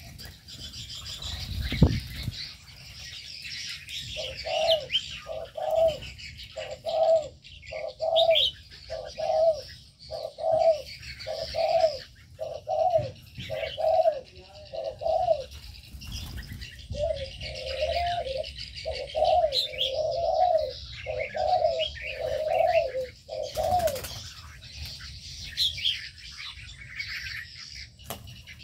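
Doves cooing: a long run of evenly spaced low coos, about one and a half a second, with a short break midway. Small birds chirp at higher pitch throughout, and there is a thump about two seconds in.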